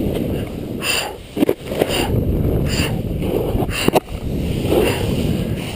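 Snowboard sliding and scraping over snow, a steady rush of board noise and wind on the microphone, with a few sharp knocks from the board chattering over bumps.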